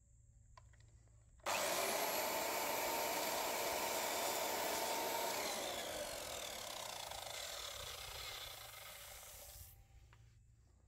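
Ozito sliding compound mitre saw switched on about a second and a half in, its blade cutting through a white wooden slat at full speed, then released so the motor winds down, its whine falling in pitch for about four seconds until it stops.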